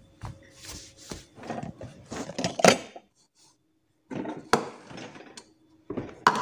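Kitchen handling sounds: dishes and a plastic cup being picked up and knocked about, in irregular clatters. There is a short gap, then more handling with one sharp clink.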